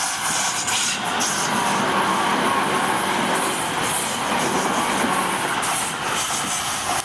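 Tobu Noda Line electric train running straight through a level crossing without stopping: a steady rush of wheel and rail noise.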